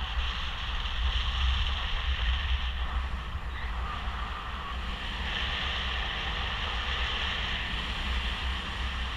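Airflow on a paraglider pilot's harness-mounted camera microphone in flight: a steady wind rush, with a strong low, flickering rumble and a hiss above it.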